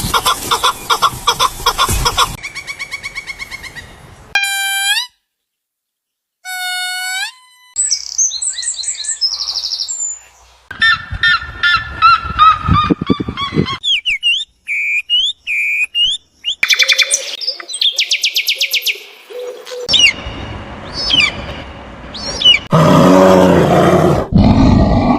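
A string of different bird calls and songs in quick succession: rapid trills of repeated notes, series of short falling chirps and whistled notes, with a brief silence about five seconds in and a louder, harsher stretch near the end.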